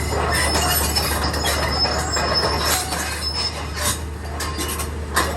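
Cat 320D2 excavator tracking up a trailer: its steel track chains squeal and clank over the undercarriage with frequent sharp clicks, while the diesel engine hums steadily underneath.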